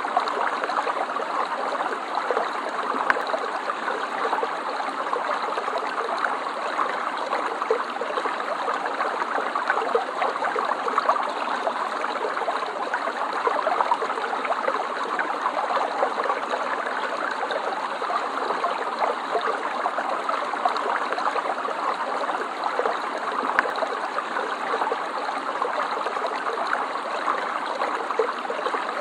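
Stream water flowing and trickling steadily over stones, an even splashing babble.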